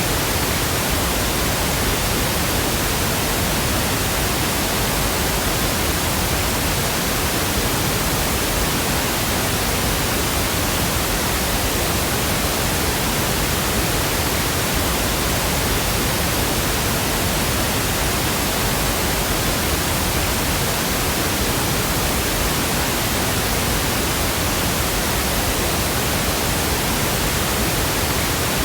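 Steady pink noise: an even, unbroken hiss across the whole range, with no changes.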